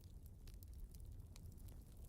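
Fireplace crackling faintly: scattered small snaps and pops over a low, steady rumble.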